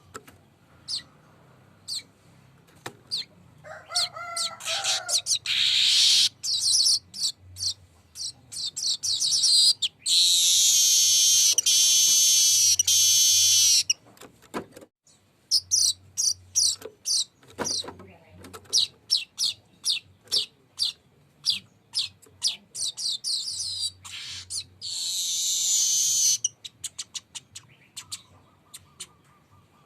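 Manyar (weaver bird) singing: fast dry chips and clicks broken by long buzzy rolling trills, the longest lasting about four seconds midway and a shorter one near the end.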